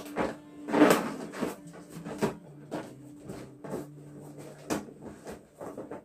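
Inflated balloons being handled and pressed into a balloon cluster: irregular rubbery knocks and rubbing, the loudest about a second in.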